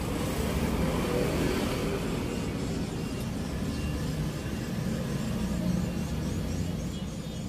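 Steady low rumble of a motor vehicle engine running, with no distinct tool clicks or knocks.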